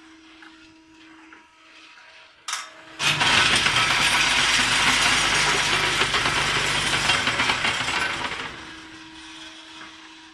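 Automatic wet-cast concrete doser running a cycle: a sharp click, then about five seconds of loud, gritty rattling and grinding over a low motor rumble, which fades out to a faint steady hum.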